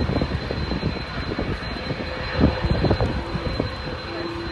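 Jet engines of an Airbus A321 airliner on its landing pass: a steady rushing rumble, gusty low down, with a thin high whine.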